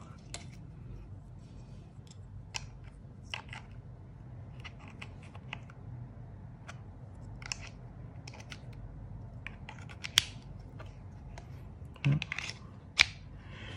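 Small hard-plastic clicks and taps as the SOL Origin survival kit's clip-in tools, among them the compass, are slid out of and snapped onto the back of its plastic case. The clicks are scattered, the sharpest about ten seconds in.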